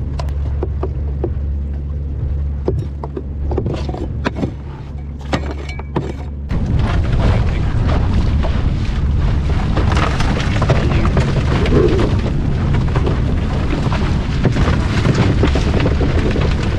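Jon boat's outboard motor running at a steady low hum, with scattered knocks, then about six and a half seconds in a sudden, much louder rush of engine and wind noise that carries on steadily.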